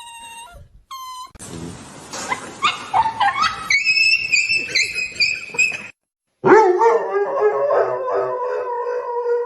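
A dog howling. A high, wavering howl cuts off abruptly about six seconds in, and after a short gap a long, steady, lower howl follows.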